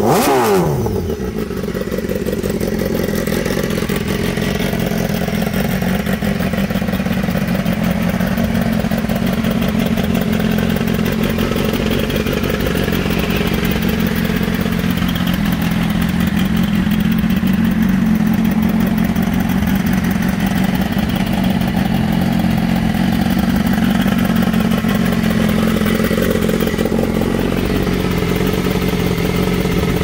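2016 BMW S1000RR's inline-four engine idling steadily shortly after a cold start, a rev dropping away in the first second before it settles.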